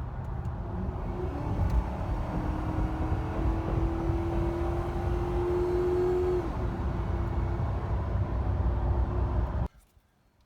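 Car engine running under load, with a steady low rumble and a tone that climbs slowly as it accelerates, then drops off about two-thirds of the way through; the sound cuts off suddenly near the end.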